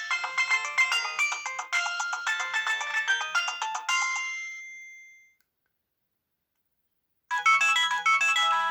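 Nokia 6030 mobile phone playing its built-in polyphonic ringtones: a fast, busy melody of quick notes fades away about four to five seconds in, then after about two seconds of silence a different ringtone begins.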